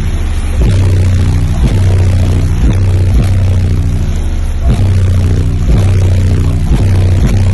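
Car audio system with twelve 12-inch subwoofers playing a bass-heavy track very loud. Deep sustained bass notes step between pitches, with a thump about once a second.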